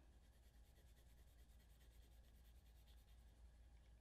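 Faint scratching of a colored pencil writing numbers on paper, very quiet over a low steady hum.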